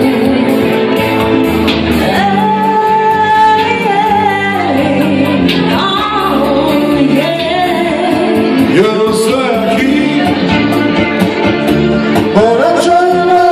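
Live band music: a woman singing a melody with held, wavering notes over keyboard and electric guitar, with a steady beat.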